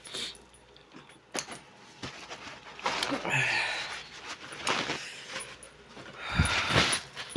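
Close-miked eating sounds while working through spicy mussels and clams: a few sharp clicks and a noisy hissing stretch about three seconds in. Near the end comes a loud, deep bodily noise in two quick pulses, which the eater then excuses herself for.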